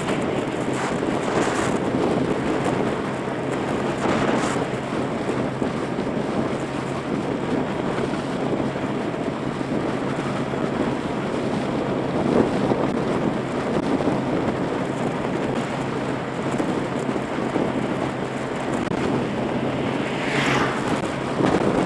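Wind rushing over the microphone of a camera on a moving motorbike, with the bike's engine running steadily beneath it. A brief falling whoosh comes near the end.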